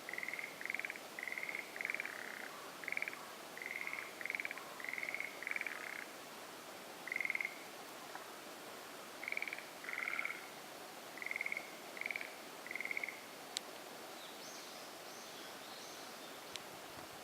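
Forest green tree frogs calling from a marsh: a run of short, rattling croaks, one after another and sometimes overlapping, that thins out and stops about thirteen seconds in. Fainter, higher chirps and a sharp click or two follow near the end.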